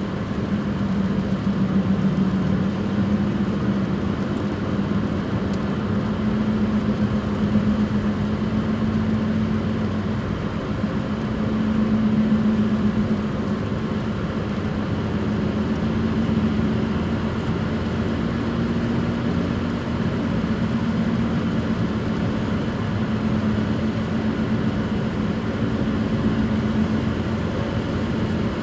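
Worn wheel bearings of a 2005 Suzuki Swift 1.3 giving a steady low roaring drone while driving at speed, swelling and fading every few seconds over tyre and road noise. The uploader takes it for bad front right and rear right bearings.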